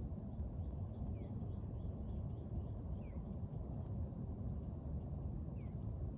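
Outdoor ambience: a steady low rumble with three faint, short, falling bird chirps spaced about two seconds apart.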